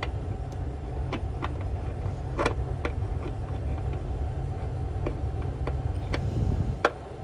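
Steady low machinery hum, with a few sharp metallic clicks of a wrench on a bolt: one about a second in, two around two and a half to three seconds in, and one near the end.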